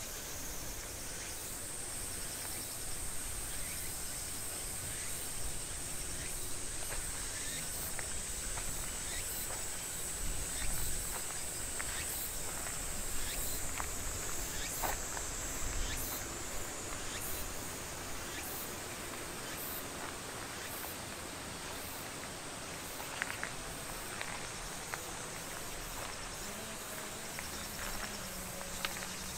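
Insects droning steadily at a high pitch, with scattered light clicks of footsteps on a stone path.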